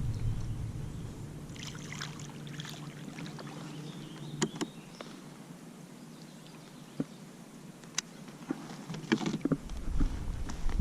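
Quiet handling noises in a small fishing boat over a steady low hum, with a few sharp clicks and taps.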